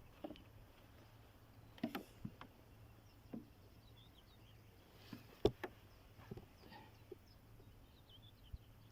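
Quiet outdoor ambience with faint birds chirping and a few separate sharp clicks and knocks, the loudest about five and a half seconds in.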